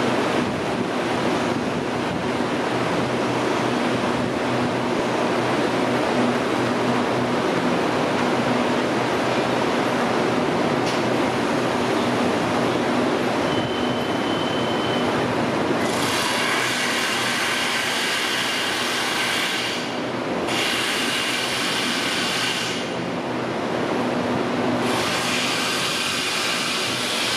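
TRA EMU800 series electric multiple unit standing at the platform, its onboard equipment humming steadily. A short high beep sounds about halfway through, and in the last ten seconds a loud high hiss with ringing tones cuts in and out three times.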